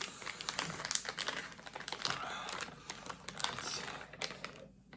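Plastic snack packaging crinkling and crackling in irregular bursts as it is handled.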